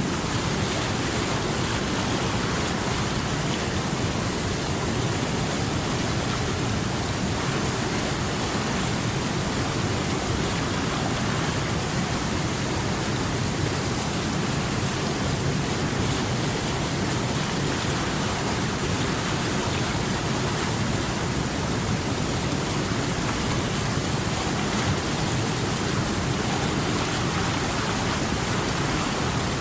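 Water rushing steadily over rocks, an even, unbroken roar of flowing water.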